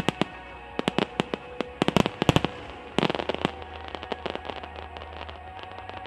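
Fireworks going off overhead: sharp bangs and crackles in quick clusters, thickest around the middle, with music playing underneath.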